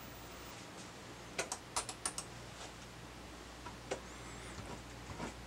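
Sparse light plastic clicks and taps, about ten spread unevenly, most of them bunched together between one and two and a half seconds in, from handling the computer's pointing device and its plug.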